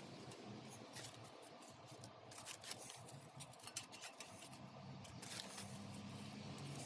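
Faint, irregular clicks and rustles of hands working with dried leaves and craft materials, over a faint low hum.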